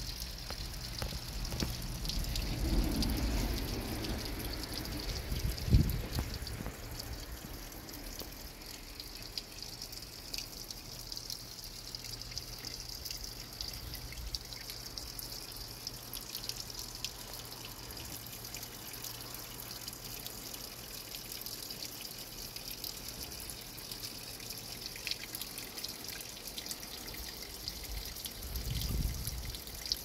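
Spring water trickling steadily from pipe spouts in a stone wall and splashing into a shallow pool below. There is a low thump about six seconds in.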